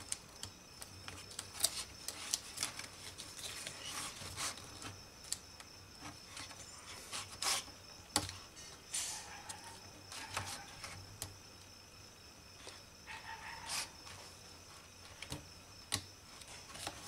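Small irregular clicks and rubbing as fingers work a laptop keyboard's flat ribbon cable into its connector on the motherboard.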